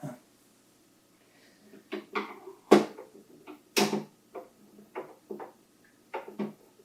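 Hard plastic knocks and clatters from the printer's housing and parts being handled during reassembly: a run of separate knocks, the two loudest about three and four seconds in.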